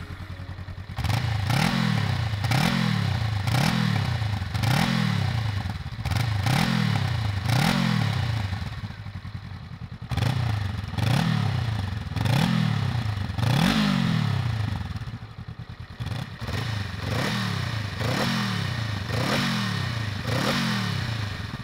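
2022 Honda Rebel 500's 471 cc parallel-twin engine idling for about a second, then revved over and over with quick throttle blips through its exhaust. Each blip rises sharply in pitch and falls back to idle, about one a second.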